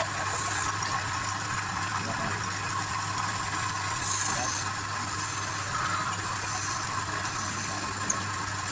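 Wood lathe running with a steady motor hum, with a few short higher hisses, the strongest about four seconds in, and a small click near the end.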